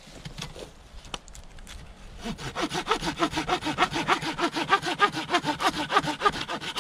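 Small hand pruning saw cutting through a eucalyptus branch held on a rock. After a couple of quiet seconds of setting up, the sawing starts and runs in quick, even strokes that grow louder.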